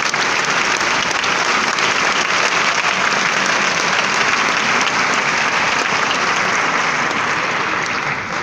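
Theatre audience applauding steadily, dying down near the end.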